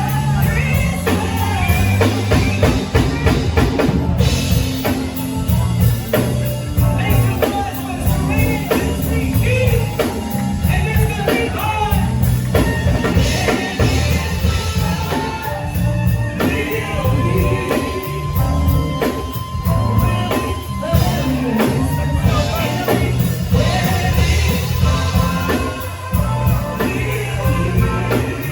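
Live band music with a singer over drum kit and bass.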